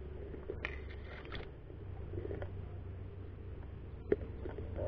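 Rustling of brush and clothing over a low steady rumble of handling noise on a rifle-mounted camera, with one sharp click about four seconds in.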